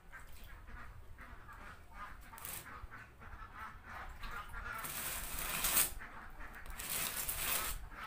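Ducks quacking repeatedly while water is poured into a basin and wet feed mash is squelched and kneaded by hand, the pouring and mixing loudest about five and seven seconds in.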